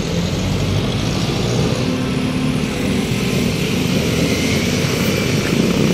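Steady traffic noise of a busy road, vehicle engines running with a low rumble.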